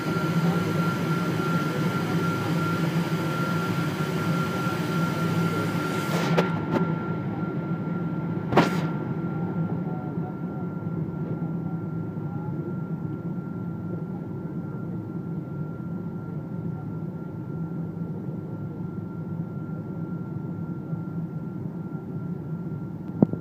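Cabin noise of a Boeing 777-200ER taxiing, its Rolls-Royce Trent engines at idle: a steady hum and rush with a thin steady whine over it. The hiss drops away sharply about six seconds in, with a few short knocks, one near the end.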